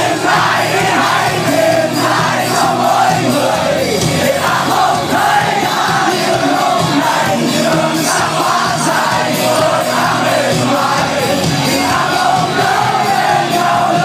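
Live rock band playing loudly on a concert stage, heard from within the audience, with the crowd yelling and singing along.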